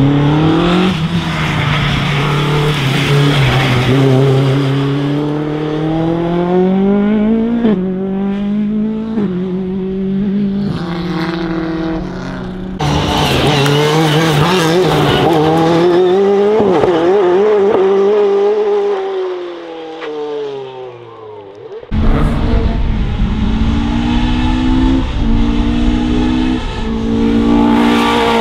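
Highly tuned race engines in modified Mk1 Ford Escort race cars revving hard past the camera, climbing in pitch and dropping back at each quick gear change. Three separate passes follow one another, cutting in abruptly. One car fades away with a falling pitch before the last begins.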